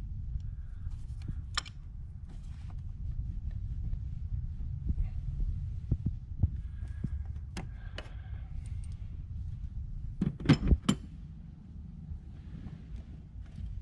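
Long needle-nose pliers clicking and tapping against metal and plastic fittings while a rubber hose is wiggled onto a barbed fitting. The clicks are scattered, with a quick cluster of sharper, louder clicks about ten and a half seconds in, over a low background hum.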